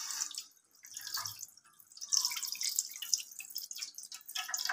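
Milk pouring from a glass jug into a karahi, splashing into the milk already in the pan; the pour is uneven, with a brief lull about a second in.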